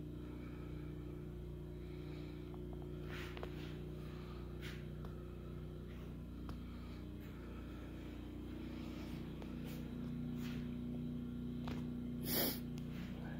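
Napoleon 9600 propane furnace running: a steady low hum with several held tones, growing a little louder near the end. A few light clicks and a short scuffing noise come near the end.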